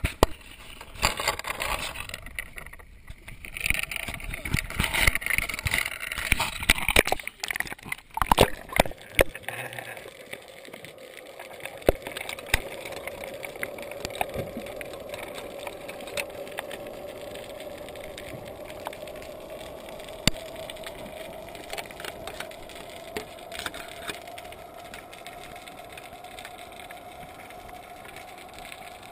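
A GoPro in its waterproof housing going down into the sea on a line. For the first several seconds there is rough splashing and knocking against the housing. From about twelve seconds in the sound turns muffled and underwater: a steady hum that slowly rises in pitch, with scattered clicks.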